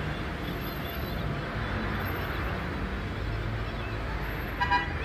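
Steady low rumble of engines and traffic, with one short, high-pitched beep about four and a half seconds in.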